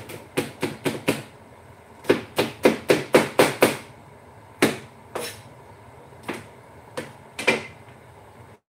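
Knife chopping on a cutting board: quick runs of sharp knocks, about six a second, with one run ending about a second in and another lasting about a second and a half, then a few single knocks spaced apart.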